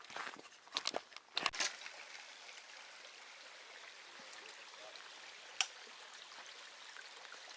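A few footsteps on a hiking trail in the first couple of seconds, then a steady faint rush of outdoor background noise with one sharp click about five and a half seconds in.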